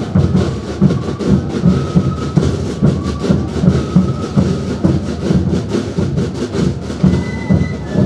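Traditional Andean dance music played live: drums beating a steady pulse, about three beats every two seconds, under short high flute notes, with a dense clattering rhythm throughout.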